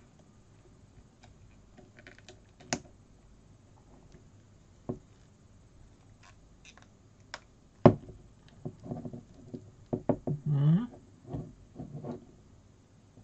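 Scattered small clicks and knocks of a plastic Kylo Ren action figure and its lightsaber being handled as the saber is pushed into the figure's hand, the sharpest click about eight seconds in.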